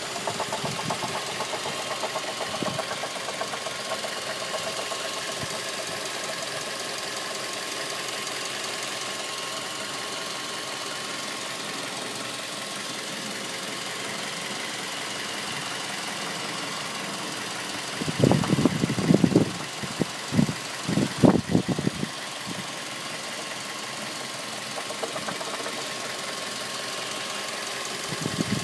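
2006 Mazda 3 four-cylinder engine running with a steady knock. About two-thirds of the way through, a few seconds of loud, irregular low thumps rise over it.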